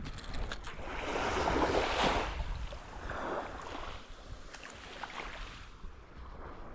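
Sea water washing in swells, loudest about a second in and again briefly around three seconds, over a steady low rumble of wind on the microphone.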